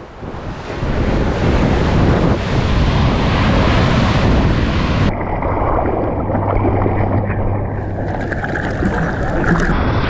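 Ocean surf breaking and washing up the beach, with wind buffeting the microphone. About five seconds in the sound changes abruptly to a duller, muffled rush of water and wind from a camera out in the surf.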